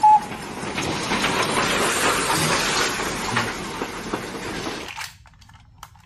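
Steam locomotive and its coaches running past: a steady rush of steam hiss and wheel-on-rail noise that cuts off abruptly about five seconds in, followed by a few faint clicks.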